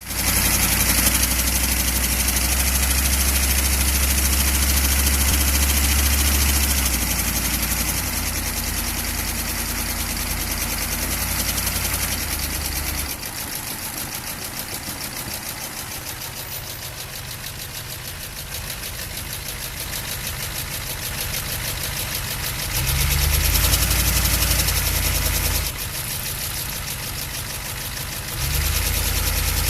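Chevrolet van's 6.2-litre V8 diesel engine running with a knocking noise, its loudness stepping up and down in stretches.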